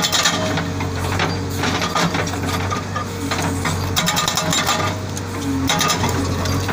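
SB43 hydraulic rock breaker on a JCB 3DX backhoe hammering rock in rapid strings of blows, over the steady hum of the machine's diesel engine.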